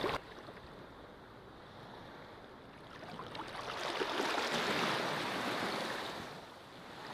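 Sea surf washing on a sandy beach: low at first, swelling to its loudest a little past halfway, then easing off near the end.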